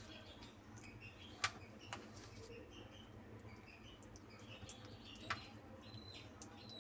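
Faint wet sounds of a hand rubbing a thick yogurt-spice marinade into a whole chicken in a steel bowl. A few sharp clicks stand out, with short high chirps in the background.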